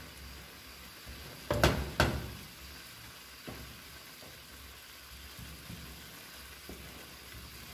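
A wooden spoon stirs instant noodles in a pan of simmering broth, over a steady bubbling sizzle. About a second and a half in, the spoon knocks twice sharply against the pan, and a few softer taps follow later.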